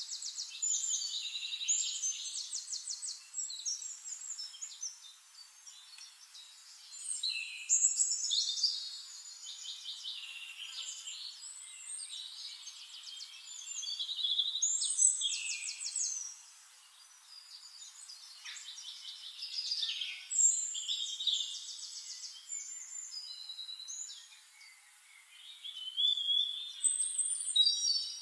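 Songbirds singing: rapid trills, chirps and falling whistles, coming in bursts every few seconds.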